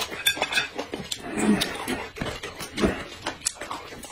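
Close-up eating sounds: chewing and mouth noises, with irregular small clicks and crackles as crayfish are picked up with chopsticks and a bamboo shoot is peeled.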